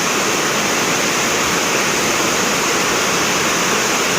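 Heavy rain pouring down in a steady loud rush, blown in sideways by the storm.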